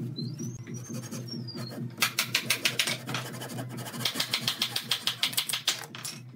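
A fine-toothed hand saw cutting through a thin wooden edge strip with quick short strokes, in a brief run about two seconds in and a longer one from about four seconds to six. Background music plays underneath.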